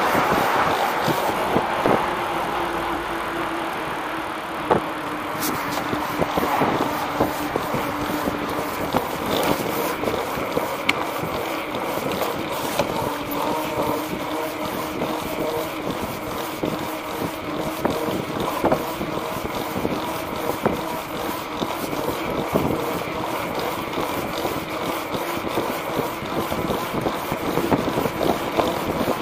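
A knobby tyre rolling over a concrete sidewalk, with a steady hum that drifts slowly in pitch and wind noise on the microphone. Sharp knocks come now and then as the wheel hits bumps and seams in the pavement.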